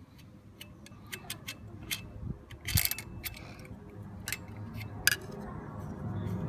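Scattered sharp clicks and light metallic taps, with louder clacks about three seconds in and about five seconds in: hand tools working at an Akrapovic slip-on exhaust to get the baffle out.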